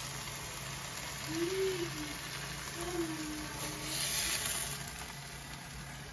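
Turkey and cheese frying on a hot electric griddle with a faint sizzle over a steady low hum, and a short louder burst of noise about four seconds in.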